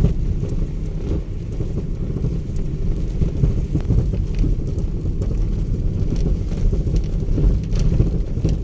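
Steady low rumble of a moving vehicle, engine and road noise, with a few light ticks.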